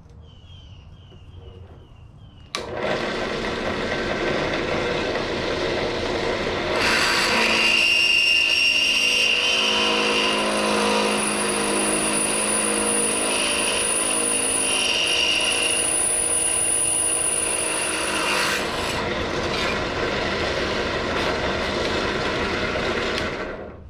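Harbor Freight benchtop drill press motor starting up, then a drill bit cutting a pilot hole through 1/8-inch steel plate, with a high-pitched squeal of the bit in the steel. The cut lasts about twelve seconds. The press then runs free until it is switched off near the end.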